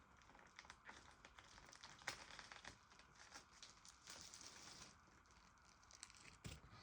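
Faint crinkling and crackling of plastic shrink wrap being peeled off a VHS tape case, in many small irregular crackles.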